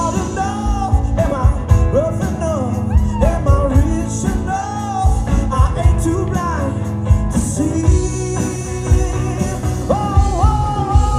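Rock band playing live in a blues-rock style: drums and bass driving underneath, with a lead line bending up and down in pitch over the top.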